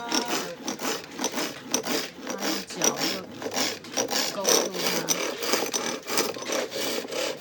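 Chisel scraping a wooden workpiece spinning on a hand-powered lathe, in a rhythm of quick, repeated back-and-forth strokes as the wood is shaved smooth.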